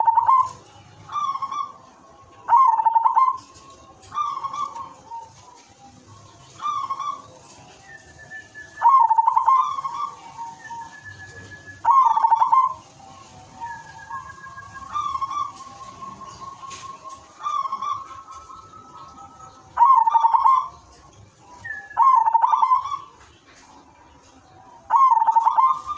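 Zebra dove (perkutut) singing: short bursts of staccato cooing, repeated every one and a half to two seconds. A few phrases end in a longer held note.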